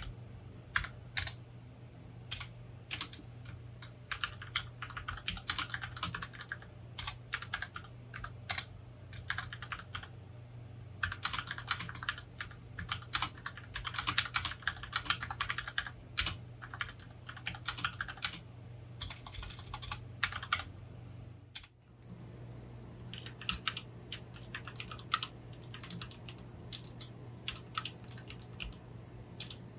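Typing on a Rakk Lam-Ang Pro mechanical keyboard fitted with Gateron switches: runs of rapid keystroke clicks with short pauses between them, briefly breaking off a little before the 22-second mark and then resuming. A low steady hum runs underneath.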